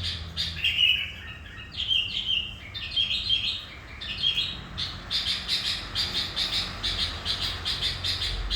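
Sooty-headed bulbul (kutilang) in full song: short chirpy phrases, then from about halfway a fast run of repeated chirps, three or four a second.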